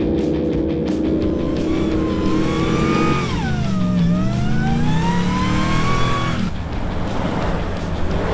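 4WD truck's engine revving as it drives through soft sand: a steady note, then the pitch dips and climbs again over a few seconds before the sound stops abruptly near the end.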